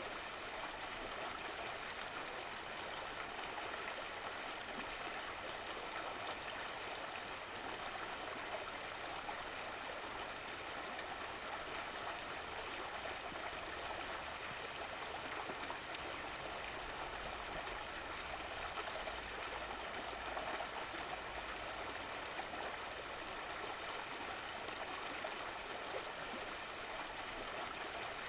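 Running water of a stream flowing steadily, an even rushing with small trickles and gurgles.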